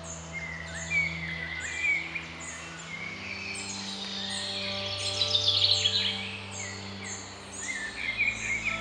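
Songbirds singing in a wooded park: a high chirp repeats roughly once a second, with a brighter burst of trilling song about halfway through. Under it runs a soft bed of low sustained tones that change chord twice, like quiet background music.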